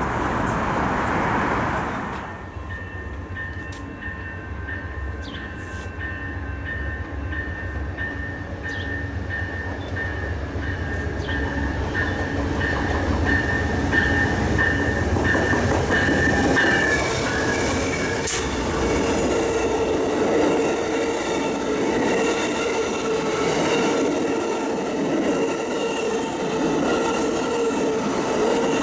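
A train passing on steel rails. A steady low rumble runs until a little past the middle, then the cars roll by with wheels squealing against the rails.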